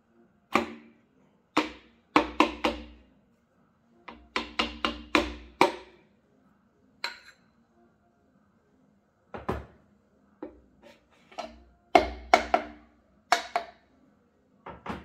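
Repeated sharp taps, in short clusters of two to five with pauses between, as a piston is driven down into a cylinder bore of a BMW S54 engine block. This piston is going in stiffly.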